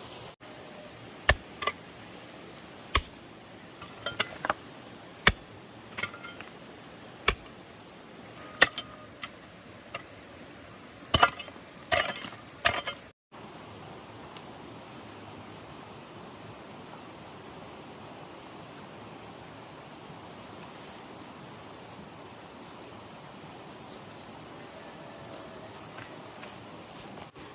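About a dozen sharp, irregular knocks over the first half, ending in a quick cluster; then the sound cuts and a steady, high insect drone takes over.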